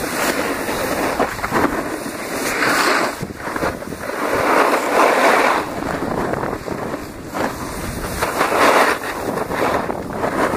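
Wind rushing over the microphone during a downhill run, mixed with the hiss and scrape of edges sliding on packed snow; it swells three times as turns dig in.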